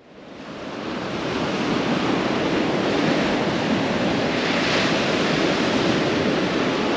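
Ocean surf breaking and washing up a sandy beach: a steady rush of water that fades in over the first second or two, with one louder wash a little past halfway.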